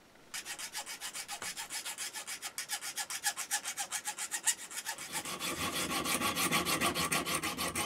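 A small needle file rasping across the edge of a brass crank disc in quick, even strokes, several a second. About five seconds in the strokes change and grow fuller as work moves to the crank pin clamped in a bench vice, being sawn to length.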